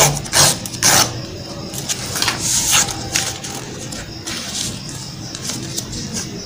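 White paper being handled and folded: a few sharp crinkles and scrapes in the first second as it is creased along a plastic ruler, then softer rustling as the sheet is folded, over a steady low background hum.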